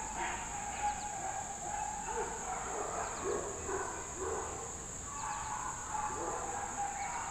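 A dog barking and yipping now and then, in short calls, over a steady high-pitched drone.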